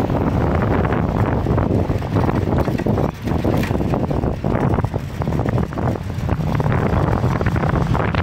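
Wind buffeting the microphone of a handlebar-mounted camera on a moving bicycle: a steady, loud low rumble that dips briefly a few times.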